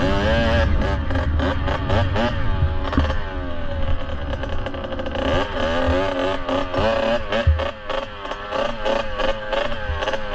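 Kawasaki KX65 two-stroke single-cylinder engine being ridden, its revs repeatedly climbing and dropping back with the gear changes and throttle, over wind noise. A sharp thump about seven seconds in.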